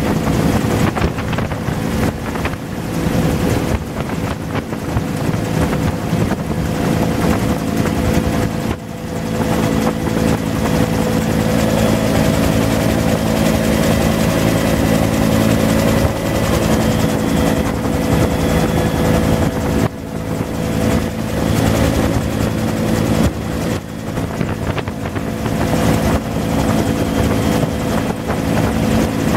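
Bell UH-1 "Huey" helicopter in flight, heard from inside its open cabin: the rotor and turbine engine run steadily and loudly, with a set of steady hum tones under a rushing noise, and wind buffets the microphone.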